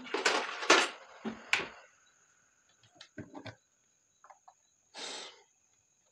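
Handling noises from a wooden electrical test board and its bulb: scraping and clattering for the first two seconds, a few small clicks about three seconds in, and a brief scrape about five seconds in.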